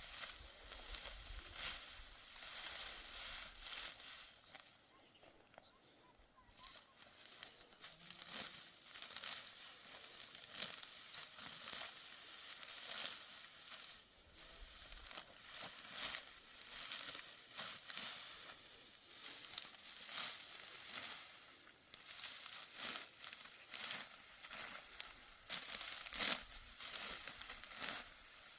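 Dry wheat stalks being harvested by hand, giving an irregular run of crisp crackling, snapping and tearing rustles, with a quieter stretch about five seconds in.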